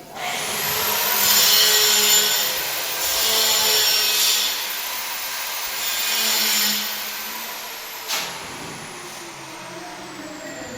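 A hand-held electric power tool switches on with a high whine and runs, bearing into work three times with louder, harsher spells. After about seven seconds it is switched off and its whine slowly winds down, with one sharp click about eight seconds in.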